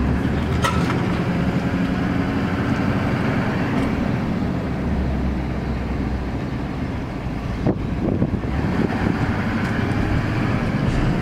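Pickup truck driving slowly, its engine and tyres making a steady low rumble heard from inside the cab.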